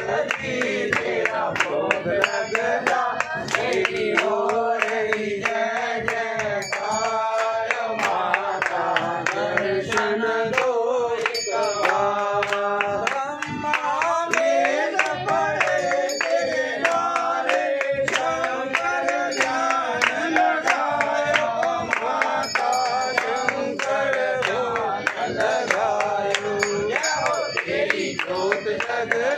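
A group of voices singing a Hindu devotional aarti hymn, with a steady beat of sharp hand claps or strikes throughout.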